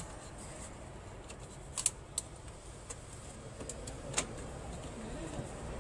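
Plastic wiring-duct cover being pressed by hand onto a slotted cable duct, snapping into place with a few sharp plastic clicks, a cluster about two seconds in and another near four seconds.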